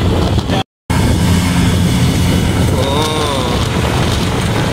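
Running engine and road noise from a moving auto-rickshaw in city traffic, with a steady low hum. The sound drops out briefly under a second in. About three seconds in, a short pitched sound bends up and then down.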